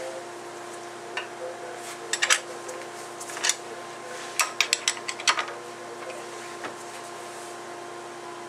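Wrench working the nut on a rifling machine's drive gear while the gear is being changed: sharp metal clicks and clinks in small clusters, with a quick run of about half a dozen clicks between four and five and a half seconds in. A steady hum runs underneath.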